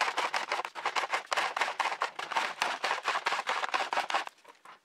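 Clear plastic model-aircraft canopy being rubbed quickly back and forth over 100-grit sandpaper, a fast rasping scratch stroke after stroke, as its edge is sanded to fit the fuselage's curve. The rubbing stops about half a second before the end.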